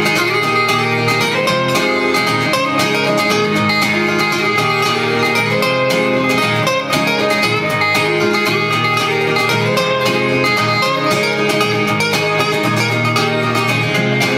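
Band playing an instrumental break between verses of an acoustic song, with guitar picking and strumming to a steady rhythm.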